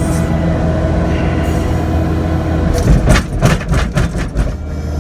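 Kubota SL75-2 tracked skid steer's diesel engine running steadily. About three seconds in, a quick run of knocks and clatter lasts a second or two.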